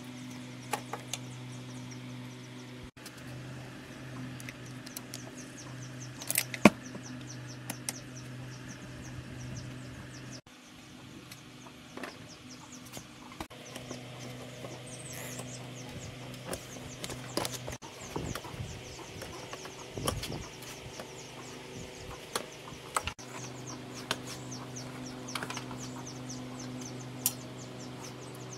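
Scattered sharp clicks and knocks of metal tools and parts being handled during motorbike repair work, over a steady low hum. A faint rapid high ticking runs in the background.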